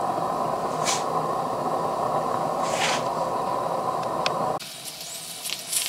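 Steady hiss from a small homemade live-steam boiler and burner, turned up after the steam pressure fell to zero. Two short, sharper hisses come about one and three seconds in. Near the end the sound drops suddenly to a fainter hiss.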